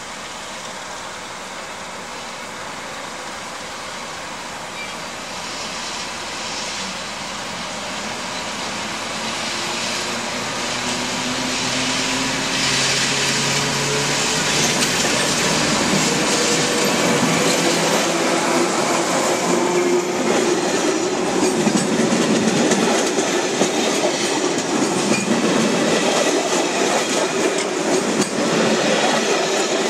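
ČD class 754 'brejlovec' diesel locomotive pulling a passenger train away from a station: its V12 diesel engine rising in pitch as it accelerates, growing steadily louder as it approaches and passes close by. In the last part the coaches roll past, their wheels clattering over the rail joints and points.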